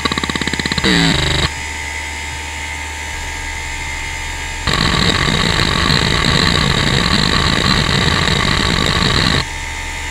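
Western Digital Caviar 31200 hard drive seeking under a Spinrite benchmark. A rapid run of evenly spaced head-seek ticks ends about a second and a half in, leaving only a steady whine. About four and a half seconds in, dense random-seek chatter starts and lasts about five seconds, then stops abruptly.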